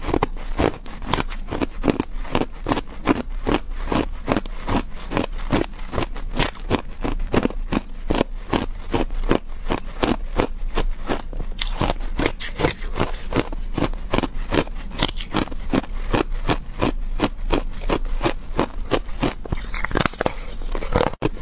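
Person chewing hard clear ice, a steady run of sharp crunches about three a second. Near the end she bites into a fresh piece.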